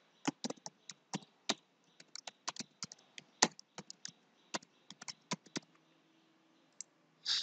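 Typing on a computer keyboard: a quick, irregular run of keystroke clicks for about five seconds, then a pause and a short noise near the end.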